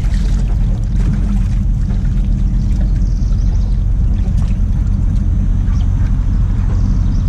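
GMC Sierra pickup truck's engine idling, a steady low rumble.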